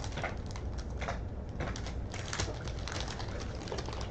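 Wax-paper wrapper of a 1980 Topps baseball card pack crinkling and tearing as it is opened by hand, a steady run of short crackles.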